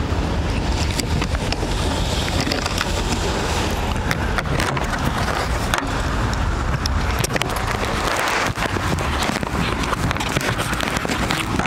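Clicks and knocks of a scooter's plastic top case being opened and rummaged through, over a steady low rumble.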